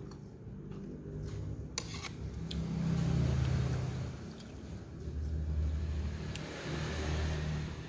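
A low rumble that swells twice, with a few light clicks of a metal spoon and fork against the plate.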